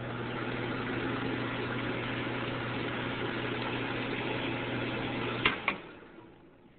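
A 1981 Nautilus exhaust fan runs steadily: air rushes over a constant hum. About five and a half seconds in come two clicks, and the motor winds down to quiet over the next second.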